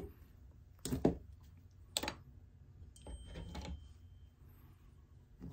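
Sharp clicks and knocks from a small hand tool and fingers working on a fly, about one a second, with a short flurry of clicking and rustling past the middle.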